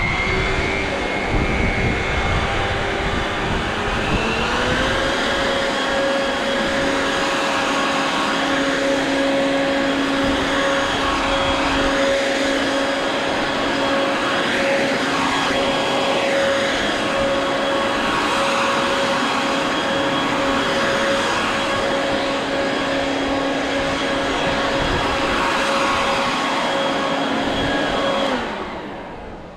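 Mac Allister MBV2800 2800 W corded electric blower vac running on the blow setting: a loud, steady motor whine that rises in pitch about four seconds in and then holds level. Near the end it is switched off and winds down.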